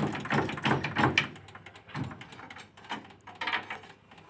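Irregular knocks and scraping from work on a truck's leaf-spring suspension: several in quick succession in the first second or so, then a few more about two and three seconds in.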